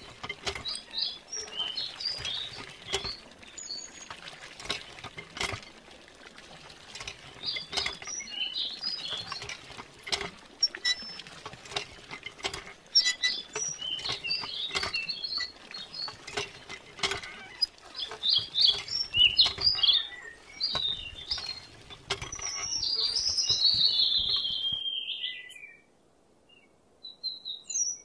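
Birds chirping over a faint steady patter and scattered small clicks, likely water trickling from a miniature hand pump into a pond. A louder, falling call comes near the end, then the sound cuts off abruptly and the chirping starts again.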